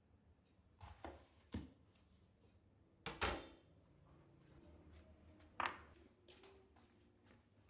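A few light clatters and knocks of kitchen utensils and dishes being handled, the loudest a little after three seconds with a brief ring.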